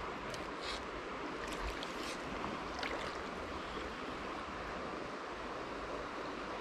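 Steady rush of a shallow trout stream running over gravel. A few brief, high swishes and ticks come in the first three seconds.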